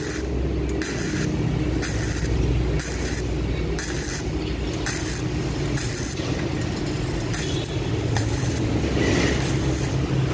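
Gasless flux-core MIG welding arc from a ProTech MIG 250i welder, crackling steadily as it lays a bead on thin steel box section, with the hiss pulsing about every two-thirds of a second.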